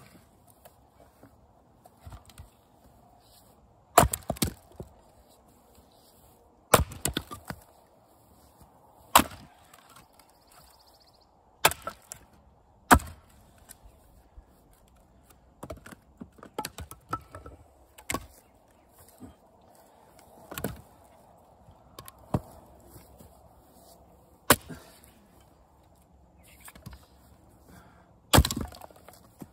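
Axe splitting fresh American persimmon rounds on a chopping block: a sharp chop every few seconds, about eight in all. Lighter wooden knocks and clatter fall between the chops.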